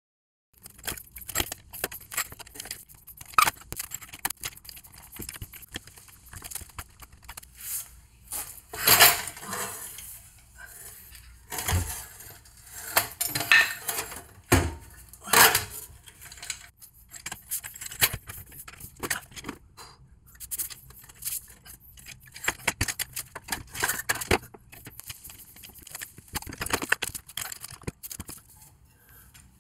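Metal clinking, scraping and knocking as a car's rear suspension parts and tools are handled: a trailing arm on a floor jack and a brake rotor and hub being fitted. A few sharper metal knocks stand out, about nine seconds and fifteen seconds in.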